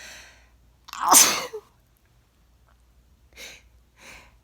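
A person sneezing: a short breath in, then one loud voiced sneeze about a second in. Near the end come two short breaths in, the build-up to the next sneeze in a run of repeated sneezes.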